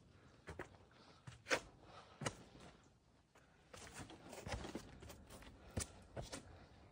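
Faint footsteps of a hiker on a rocky trail: a handful of soft, scattered taps and scuffs on stone, with a brief silent pause midway.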